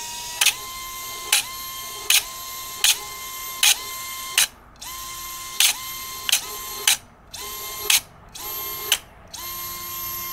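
Brushless 3800 kV FPV drone motor on 4S spinning a stiff 3-inch Emax Avian prop at about 30% throttle, a steady high whine, as a metal rod is jabbed into the prop about ten times. Each strike is a sharp clack, and the motor briefly stalls or bogs, then spins back up. It is a prop-jam stall test meant to spike current through the ESC, and the motor keeps taking it.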